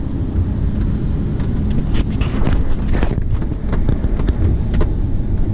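Lamborghini Huracán's V10 engine and road noise heard from inside the cabin while driving, a steady low drone with scattered short clicks in the middle.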